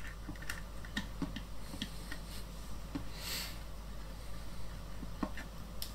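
Faint small plastic clicks and taps as the diffuser panels are pushed back into a Yongnuo YN-560 flash head, with a short rustle about three seconds in, over a steady low hum.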